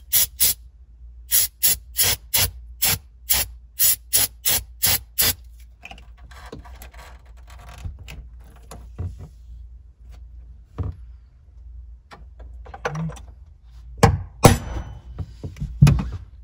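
Aerosol brake cleaner sprayed in about fifteen short, quick bursts for the first five seconds, followed by quieter rubbing and wiping, and a few loud thumps near the end.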